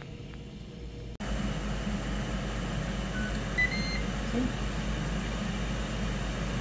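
Ninja Foodi indoor grill's fan running with a steady whir, which gets suddenly louder about a second in. Around the middle come a few short electronic beeps: the grill's alert that half the cooking time is up and the food should be flipped.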